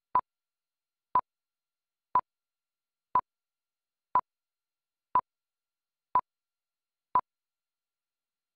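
Countdown leader beeps: eight short, identical single-pitch beeps, one each second, one for each number counted down.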